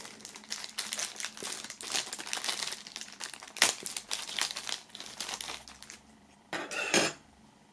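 Clear plastic film crinkling and crackling as it is peeled and torn off a metal pin, with a short, louder crinkle near the end.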